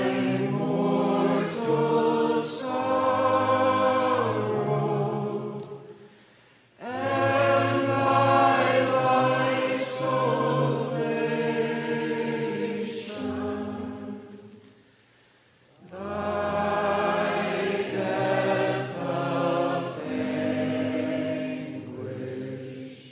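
A choir singing slowly in three long phrases of about seven seconds each, with short breaks between them.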